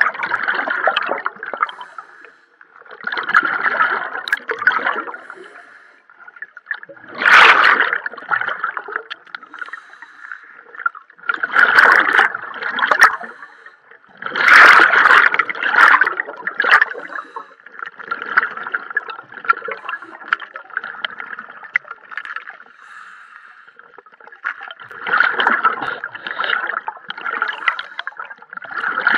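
Scuba diver breathing through a regulator underwater: exhaled air bubbles out in a gurgling burst about every three to four seconds, with a steady hum in between.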